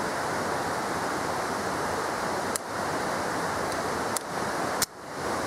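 Steady wind rushing over the microphone, with three light clicks in the second half.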